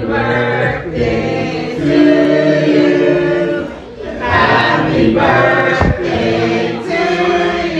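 A choir singing, with voices holding long notes and short breaks between the phrases.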